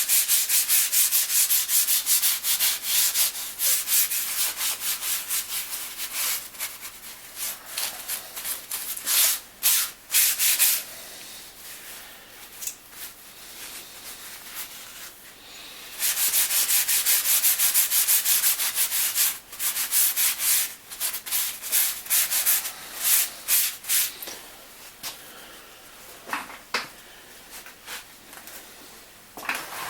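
Rapid back-and-forth scrubbing and rubbing on the painted metal of a lathe, cleaning off old oil stains. It pauses for several seconds about a third of the way in, then resumes in shorter bouts.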